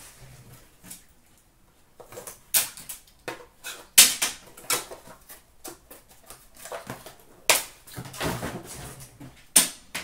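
Handling noises from trading cards and card boxes being moved on a counter: irregular taps, clicks and rustles, with a few sharper knocks, the loudest about four seconds in.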